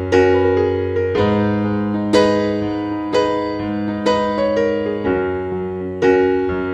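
Background music: a piano playing slow chords, a new chord struck about once a second and left to fade.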